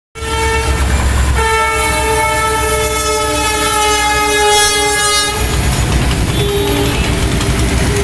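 Indian Railways WDG4G diesel locomotive's air horn: a short blast, then a long blast of about four seconds that cuts off about five seconds in. Under it runs a heavy low rumble as the train passes at speed.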